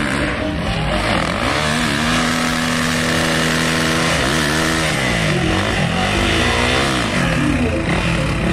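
Dirt bike engine at high revs on a steep, loose climb. It holds steady for a couple of seconds, then drops and rises sharply several times as the rear wheel spins in the dirt.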